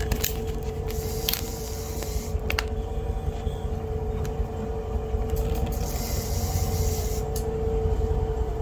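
Boat motor running steadily at trolling speed: a low rumble with a constant whine, and a few light knocks.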